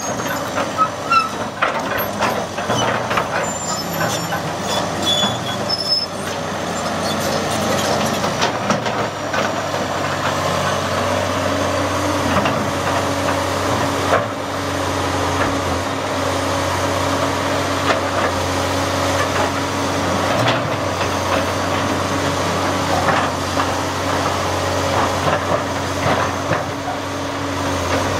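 Komatsu six-cylinder turbo diesel engine of a 1990 Komatsu PC400LC-3 excavator running under load as the machine swings and digs, with hydraulic whine. There are scattered knocks and clanks in the first few seconds, and about eleven seconds in a tone rises and then holds steady.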